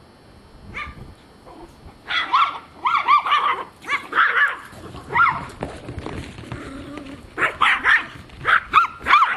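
Small dogs, papillons, barking in quick high-pitched runs. The barking starts about two seconds in, pauses briefly past the middle, and picks up again near the end.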